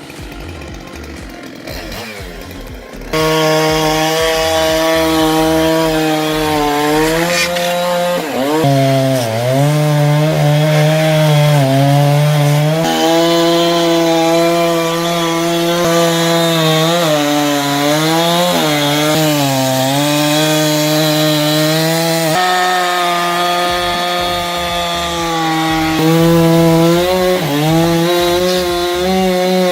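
Chainsaw engine running at high revs, starting suddenly about three seconds in, its pitch dipping and recovering several times as the chain loads up in the wood.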